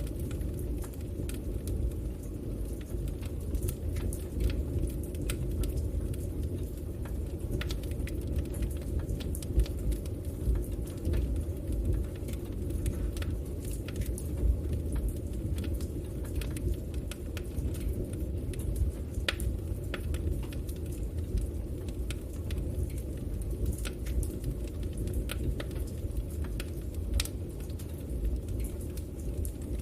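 Fire burning in a fireplace: a steady low rumble of the flames with scattered, irregular crackles and pops.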